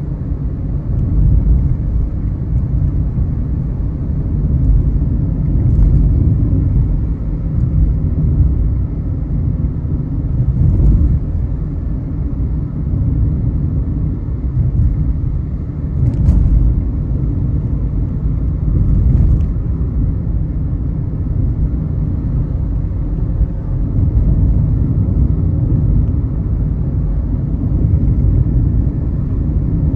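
Car driving on the road: a steady low rumble of engine and tyre noise, with a few faint clicks now and then.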